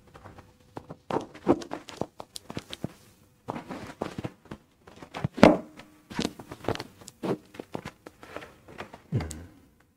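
Handling noise of a clip-on microphone being fastened at the collar: irregular rustling, scraping and knocks of fingers and fabric on the mic, with a dull thump near the end.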